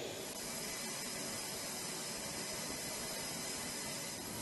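A steady, even hiss of noise that does not change, with no distinct events.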